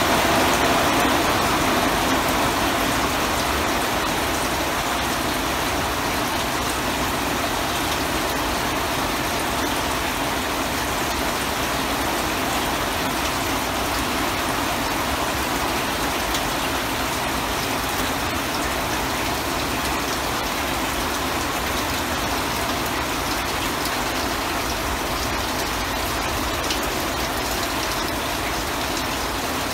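Heavy rain pouring steadily on a garden, deck and plant pots: a dense, even hiss, a little louder in the first couple of seconds.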